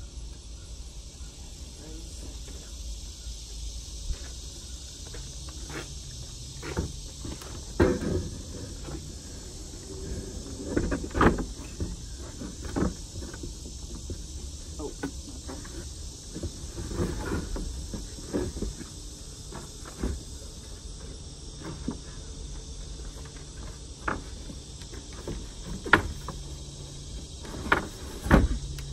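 Wooden knocks and thuds of a homemade plywood bed platform being lifted, shifted and slid into a car's cargo area: irregular sharp knocks several seconds apart, a few louder bumps near the middle and end. A steady high insect drone runs underneath.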